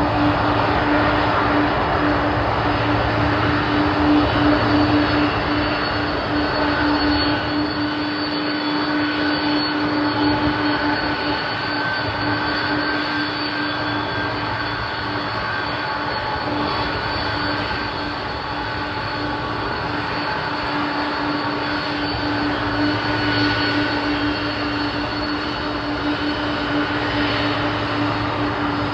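Boeing 747 jet engines running steadily: a loud, even rush of jet noise with a steady whine.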